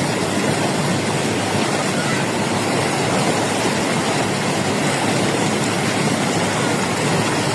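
Water rushing steadily over a dam's spillway, a constant loud rush: the reservoir is full and overflowing strongly.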